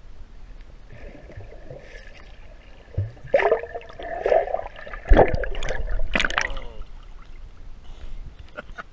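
Muffled underwater water noise picked up through a waterproof camera housing: gurgling and bubbling, with several louder sloshing splashes around the middle as the swimmer moves close by.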